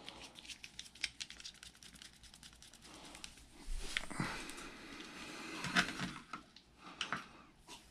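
Small metal clicks and scraping as a magnetic-tip screwdriver handles tiny screws and drives them into an RC car motor's end bell. The clicks are scattered throughout, with a busier, louder stretch of scraping in the middle.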